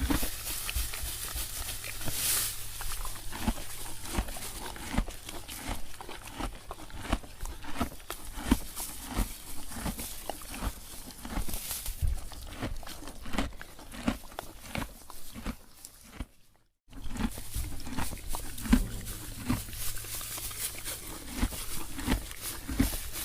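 Close-up mouth sounds of a person chewing Oreo cookies: crunching and smacking, with a brief gap about two-thirds of the way in.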